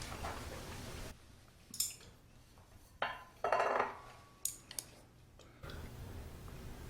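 Eating utensils knocking and scraping against dishes: a few separate clinks, the loudest about three and a half seconds in, followed by a short ringing tone.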